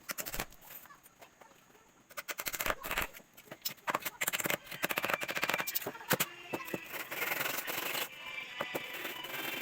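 Woodworking on a wooden bench leg: a run of sharp clicks and knocks, then steady rubbing or sanding from about six and a half seconds in.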